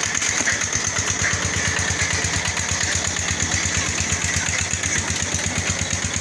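A small engine running steadily at idle, with about ten even pulses a second.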